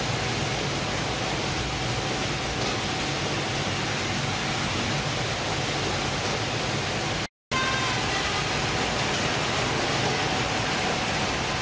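Steady noise of fish-processing machinery running, from conveyors and processing equipment. It cuts out completely for a moment about seven seconds in, and afterwards carries a few faint steady tones.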